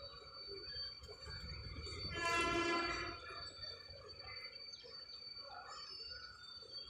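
A horn sounds once for about a second, a little over two seconds in, over a low rumble. A faint steady high tone runs throughout.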